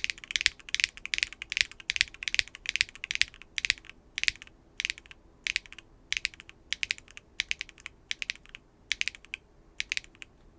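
Keygeek B1 linear mechanical keyboard switches being typed on: a steady run of sharp, high, extremely clacky keystrokes that stops shortly before the end. The switches have nylon bottom housings with 50% fiberglass and POM stems, built for this clacky sound.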